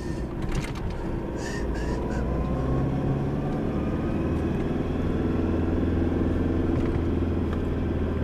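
A four-wheel-drive vehicle's engine running as it drives along, a steady low drone with a faint rising whine about a second in. There are a few light rattles in the first couple of seconds.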